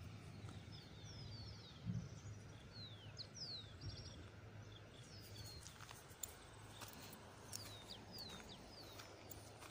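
Faint outdoor ambience of small birds calling: short, high chirps that fall in pitch, scattered throughout, over a steady low background hum, with a few faint clicks.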